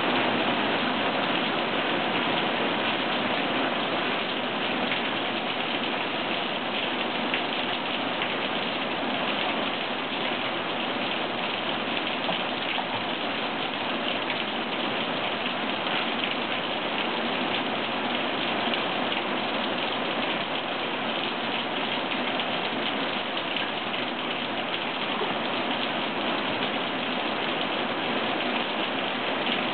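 Rain falling steadily, a dense even hiss of drops.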